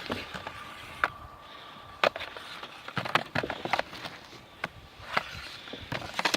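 A broom sweeping snow off a car, in a dozen or so quick, irregular brushing and scraping strokes.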